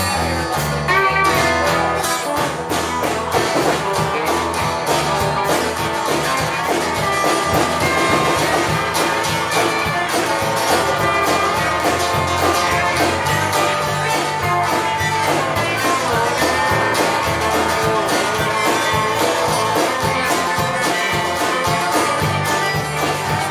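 Live roots-rock band playing, with strummed acoustic guitar over a steady beat.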